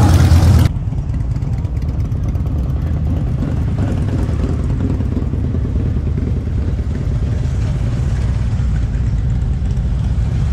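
Touring motorcycles and a trike rolling slowly past at low revs, with a steady low engine rumble. A louder mixed sound cuts off abruptly under a second in.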